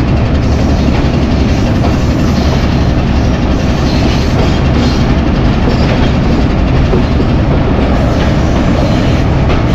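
Hitachi PHA-20 diesel locomotive train on the move: a loud, steady run of heavy engine and rail noise, with wheels clicking over the track.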